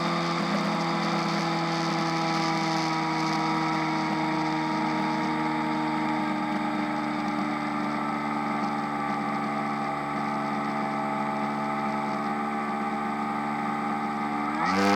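RC model airplane engine idling steadily, then throttled up with a quick rise in pitch and loudness near the end.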